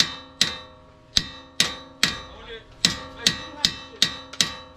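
Hammer blows on a seized steel bolt in the strut-to-knuckle mount of an S550 Mustang's front suspension: about ten sharp, ringing metal strikes, roughly two a second, with a couple of short pauses. The bolt is stuck and is being driven out.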